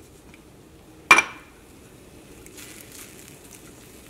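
A single sharp clink with a short ring, about a second in, from a utensil striking a pan or container, then faint swishing as a silicone spatula stirs seasoned water in a stainless steel pan.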